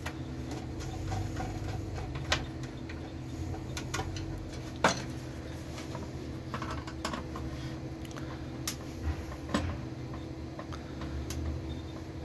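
Scattered light clicks and knocks as a new LMS 14 boiler control board in its yellow plastic housing is worked with a screwdriver and handled, over a steady low machinery hum in the boiler room.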